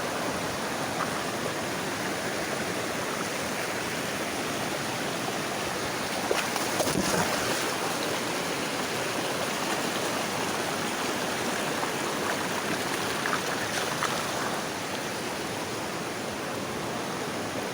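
Steady rush of a rocky mountain stream flowing over stones, with a few faint knocks about six seconds in and again near fourteen seconds.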